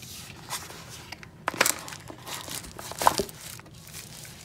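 Thin plastic bag crinkling as a wrapped power bank is handled and lifted out of a cardboard box, with sharp rustles or taps about a second and a half in and again about three seconds in.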